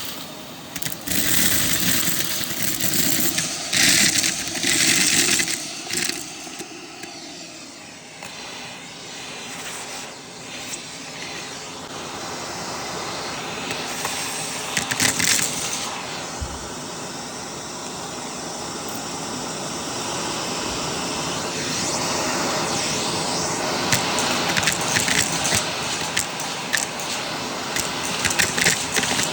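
Vacuum cleaner running steadily, with louder surges and sharp clicks in the first few seconds, once about halfway and again near the end.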